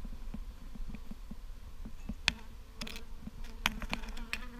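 Honeybees from a small, agitated swarm buzzing around the microphone, a steady hum with bees passing close, and scattered short clicks.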